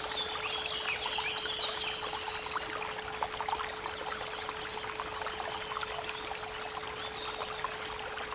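Creek water running and trickling, with birds chirping in short high calls, busiest about a second in, over a steady 432 Hz pure tone.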